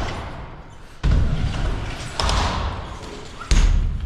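BMX bike riding skatepark ramps: tyres rolling with a rumble, with three heavy thuds of the bike landing and hitting the ramps, about one, two and three and a half seconds in.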